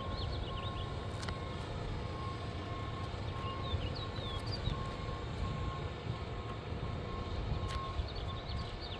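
Outdoor background: a steady low rumble, with clusters of short high bird chirps near the start, around the middle and near the end, and a couple of faint clicks.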